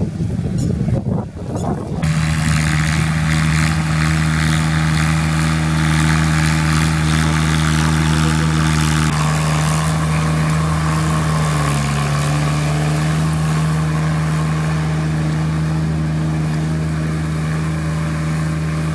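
Sonalika GardenTrac mini tractor's diesel engine running under load as it pulls a rotary tiller through wet paddy mud. After an uneven first couple of seconds it settles into a steady drone, with a brief dip in pitch about twelve seconds in.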